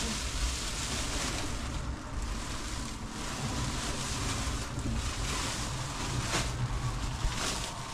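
Plastic bags and a plastic sheet rustling and crinkling as they are handled, in several short bursts over a steady low rumble.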